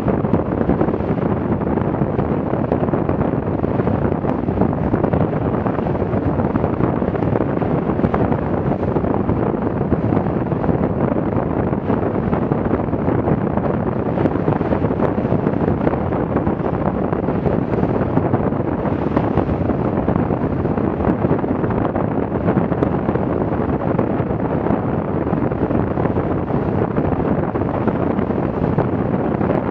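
Heavy wind buffeting the microphone, with water rushing and splashing along the hull of a Farrier F-82R trimaran sailing at around nine knots. A steady, dense roar with no let-up.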